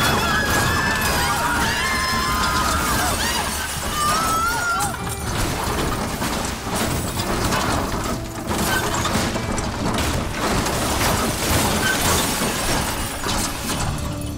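A car crashing and tumbling: a long, continuous clatter of crunching and breaking glass with many sharp knocks. High cries glide over it in the first few seconds.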